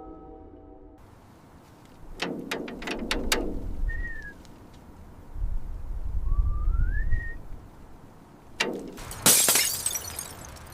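Sharp impacts: a quick run of about five knocks, a low rumble, then a loud crash about nine seconds in. Two short rising and falling chirps, like a bird's, come between them.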